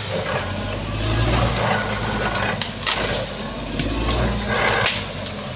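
Bulldozer's diesel engine working, its drone swelling and easing, with scattered sharp metallic clanks.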